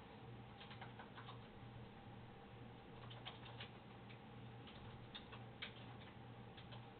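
Near silence: faint room tone with a low steady hum and a few scattered light clicks and ticks.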